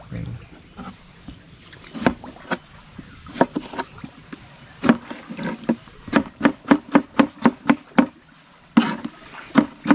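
Kitchen knife chopping on a cutting board: a few scattered strokes, then a quick steady run of about four chops a second from about six seconds in, with a short pause near the end. A steady high chirring of crickets goes on throughout.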